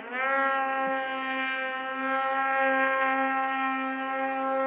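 Snowmobile engine revving up in the first half second and then held at a steady high pitch, a continuous buzzing drone as the sled pushes through deep powder.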